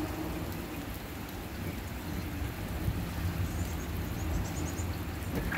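Steady rain falling on pavement and grass, an even hiss with a low rumble underneath.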